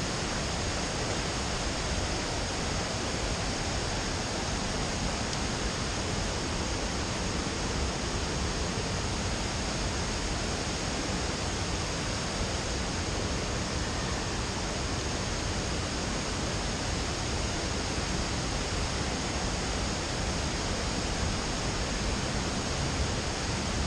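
Steady rush of flowing river water, an even hiss that keeps the same level throughout.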